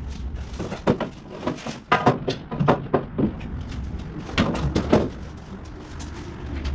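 Irregular clunks and knocks as a three-core aluminum radiator is worked down into its rubber mounts.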